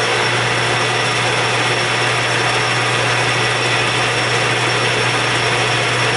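Manual metal lathe running steadily under power, its motor hum and gear whine holding even.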